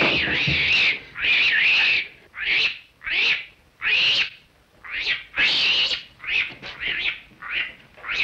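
Capuchin monkey shrieking: about a dozen high, rough calls, the first ones long and drawn out, the later ones shorter and coming quicker.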